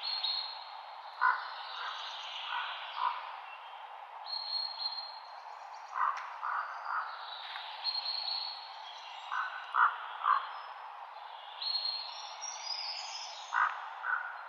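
Several songbirds singing. One repeats a phrase of three or four short, low notes about every four seconds, while others add higher warbles and trills. A steady rustling hiss sits beneath them.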